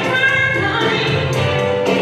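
A woman singing into a microphone over musical accompaniment, holding long sustained notes, amplified through a hall's sound system.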